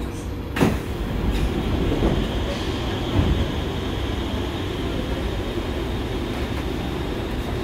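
Passenger doors of a Kawasaki–Nippon Sharyo C751B metro car sliding open at a station stop, with a sharp clunk about half a second in and a few lighter knocks after. The stopped train hums steadily underneath.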